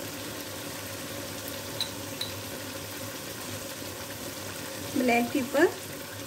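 Chicken pieces sizzling steadily in ghee and onion liquid in a nonstick wok, with two light clicks about two seconds in. A few spoken words come near the end.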